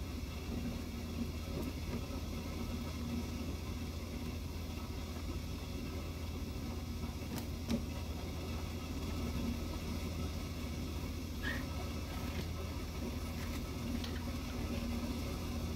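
Steady low machinery hum, with a few faint clicks and taps as a metal hose fitting is handled and screwed onto its connector.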